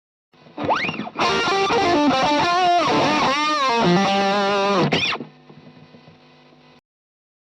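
Electric guitar through a Boss OD-2 Turbo Overdrive pedal, played as a distorted lead phrase: a slide up into sustained notes with string bends and vibrato. About five seconds in it drops to a quieter ringing tail that then cuts off.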